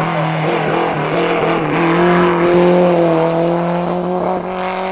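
Ford Cortina Mk1 race car's four-cylinder engine pulling hard up a hill, its pitch rising slowly as it accelerates, with a hiss of tyres on soaking-wet tarmac.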